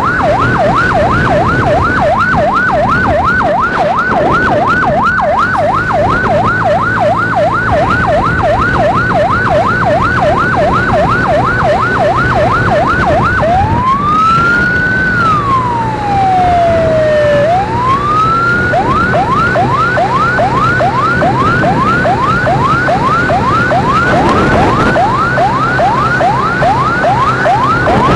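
Electronic emergency siren sounding a fast yelp, about three sweeps a second, switching about halfway through to a slow wail that rises, falls and rises again before going back to the yelp. A steady engine and road hum runs underneath.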